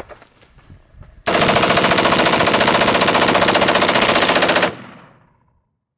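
Rifle firing a long, very rapid and even string of shots at pumpkin targets, sped up in fast-forward. The shots start abruptly about a second in, run for about three and a half seconds and then fade out.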